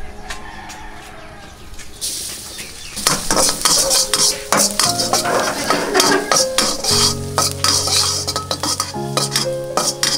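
Chopped aromatics frying in hot oil in a wok: a sizzle starts about two seconds in, and from about three seconds a metal spatula scrapes and clicks against the wok as they are stirred.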